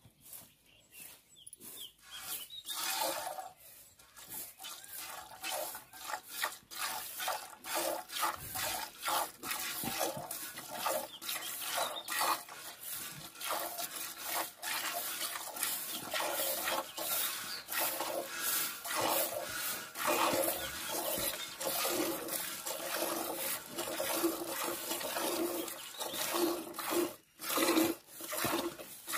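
Milk squirting into a steel pail as a cow is hand-milked: quick, rhythmic hissing spurts, one with each pull on the teats, which settle into a steady rhythm about two seconds in.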